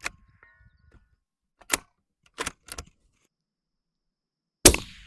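A few short mechanical clicks about two seconds in, typical of a bolt being cycled, then a single suppressed .308 rifle shot near the end, a sharp crack with a short fading tail through the SureFire SOCOM suppressor.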